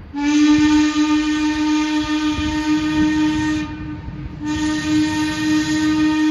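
Steam whistle of Heisler No. 3, a 1915 wood-burning geared steam locomotive, blowing two blasts at one steady pitch: a long one of about three and a half seconds, then after a short break a second that starts about four and a half seconds in and carries on.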